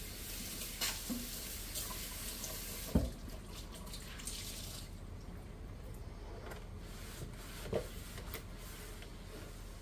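Kitchen faucet running into a stainless steel sink as a cloth is rinsed under it, then turned off after a few seconds. A few knocks follow, the loudest about three seconds in and another near the end, as the cloth is taken to the planter.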